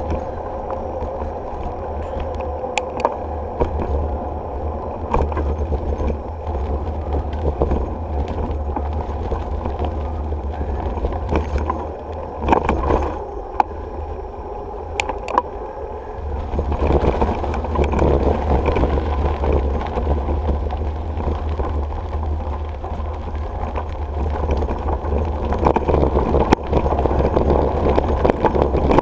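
Bicycle riding along a paved trail, heard from a handlebar-mounted action camera: steady wind rumble on the microphone and tyre noise, with scattered knocks and rattles from bumps. A cluster of sharper knocks comes around the middle as the bike rolls onto a footbridge, and the rumble grows louder after it.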